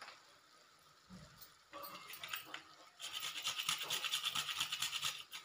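Whole nutmeg being rubbed quickly back and forth on a small metal hand grater, a fast rhythmic rasping. A few light strokes come about two seconds in, and it settles into a steady run from about three seconds.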